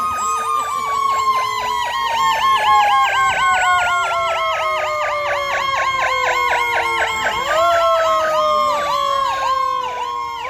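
Fire apparatus sirens sounding as the trucks pass. One electronic siren sweeps fast, about five times a second, over a second siren whose wail falls slowly for about seven seconds, then climbs again about three quarters of the way through and near the end.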